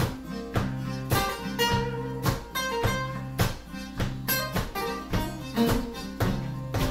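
Guitars playing together in an informal jam: chords struck in a steady rhythm about twice a second over held low notes, one of them an archtop guitar.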